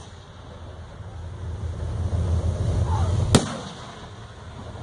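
Aerial fireworks display: one sharp bang about three and a half seconds in as a shell goes off, over a low steady background rumble.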